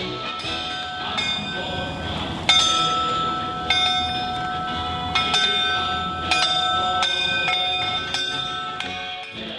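Intro music of ringing bell tones: each struck note rings on while the next comes in about every second, the loudest strike about two and a half seconds in.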